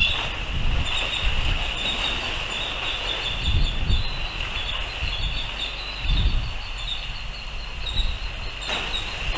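Wind gusting across an outdoor microphone in uneven low rumbles. Under it runs a steady high-pitched whine with faint, repeated chirps.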